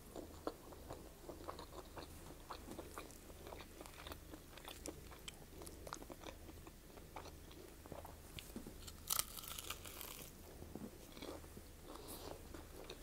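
A person biting into and chewing crispy Popeyes fried chicken close to the microphone: a run of small crunches and wet chewing clicks, with a louder crunch about nine seconds in.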